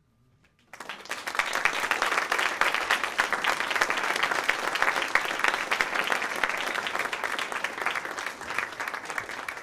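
Audience applauding, breaking out suddenly less than a second in after a near-silent pause and then continuing at a steady level.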